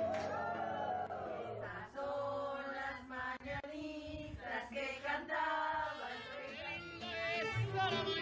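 Singing voices with music.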